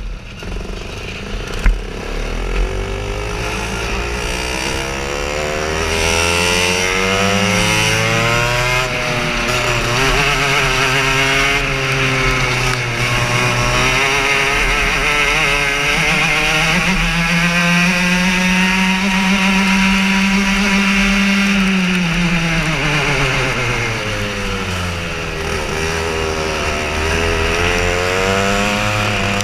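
Racing kart engine pulling away from a standstill and lapping, its pitch climbing as it accelerates and dipping and rising again through the corners. A brief sharp knock about two seconds in.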